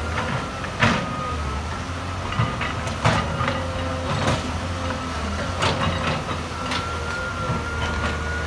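Caterpillar tracked excavator running under load: a steady low diesel drone with a high steady whine over it, and several sharp metal clanks, the loudest about a second and three seconds in.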